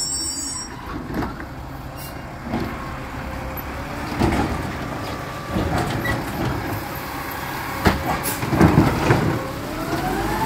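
Garbage truck running, with a steady engine rumble, several sharp knocks and clanks, and a rising whine near the end.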